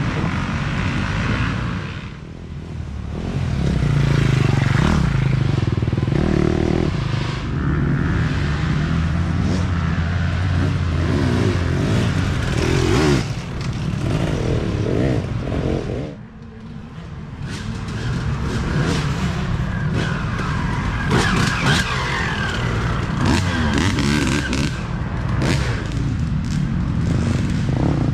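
Dirt bike engines revving up and down as riders come through one after another, the throttle rising and falling. The sound dips briefly twice, a couple of seconds in and about halfway.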